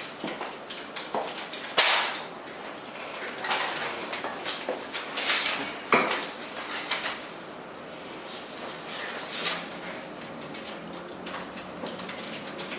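Scattered clicks, knocks and small clatter in a room, with two sharper knocks about two and six seconds in.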